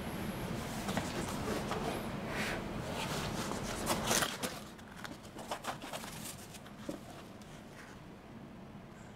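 Cardboard box handled by gloved hands: scuffs, rubbing and small knocks as it is moved on the table and its lid opened, loudest about four seconds in, then a few quieter clicks and scrapes.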